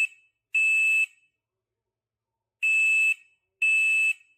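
First Alert SC5 smoke and CO alarm's piezo horn sounding its smoke test in the three-beep temporal-3 smoke pattern: loud, high-pitched beeps about half a second long. One beep ends the first set, then comes a pause of about a second and a half before two beeps of the next set.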